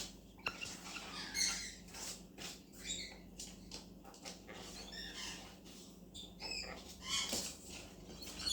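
Sun conure tearing and chewing at a cardboard box: irregular scratchy rustles and crunches, with a few short high squeaks mixed in.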